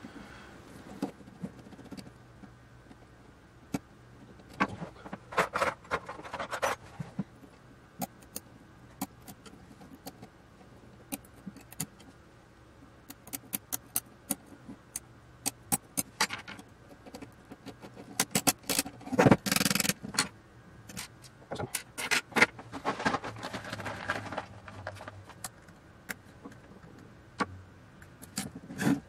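Small metal clicks, scrapes and rattles of hand tools and parts being worked on an aluminium electronics box, coming in scattered bursts, with a hex key working a knob's set screw near the end.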